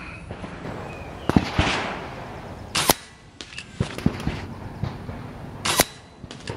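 Two shots from a regulated Kral Puncher Jumbo .25 pre-charged pneumatic air rifle, about three seconds apart, each a sharp crack. A louder knock comes about a second in, before the first shot.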